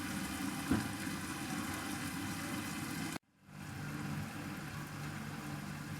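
Pan of dragon chicken cooking covered on the stove, a steady simmering hiss with a single light knock about a second in. It cuts out abruptly a little after three seconds and comes back with a steady low hum underneath.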